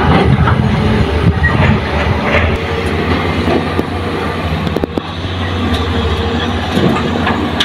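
Kobelco SK200 hydraulic excavator's diesel engine running steadily while the machine works, loading soil into a dump truck, with scattered metallic clanks.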